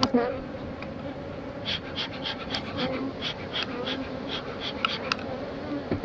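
Honeybees buzzing steadily around an open hive, while the bellows of a bee smoker is pumped in a quick run of short puffs, about three a second. The puffs start about two seconds in and stop about a second before the end.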